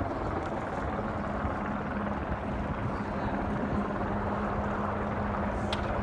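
An engine running steadily, a low hum under a rushing noise, with a brief high squeak near the end.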